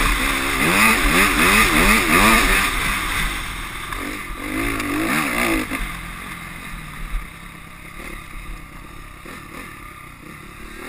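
Honda CRF250R dirt bike's four-stroke single-cylinder engine revving up and down in quick cycles, about two to three a second, as the throttle is worked over whoops. About six seconds in it drops to a quieter, lower running.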